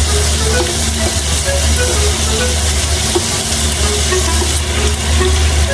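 Food frying in a hot pan: a steady sizzle.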